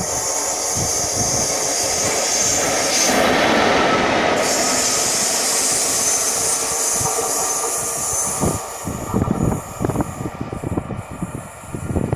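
Locomotive-hauled train on electrified main-line track, a steady loud rush of running noise with a sharp hiss up high. About two-thirds of the way in it gives way to irregular low buffeting, likely wind on the microphone.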